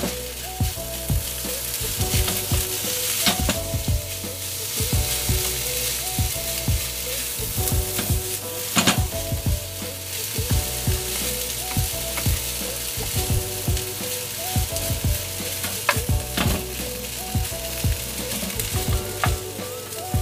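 Fried rice sizzling in a hot frying pan while a spatula stirs and tosses it. The spatula knocks and scrapes against the pan many times, a few knocks louder than the rest.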